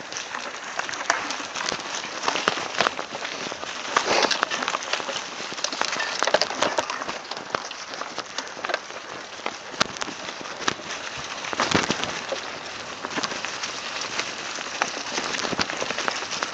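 Mountain bike tyres rolling fast downhill over dry leaf litter, a continuous crackling hiss dotted with sharp clicks and a few louder knocks as the bike goes over bumps.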